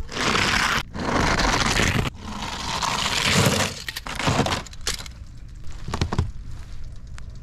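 Plastic toy monster trucks sliding and rattling down an iced-over plastic track, a long scraping, crunching noise in three stretches, followed by a few sharp knocks about four to six seconds in.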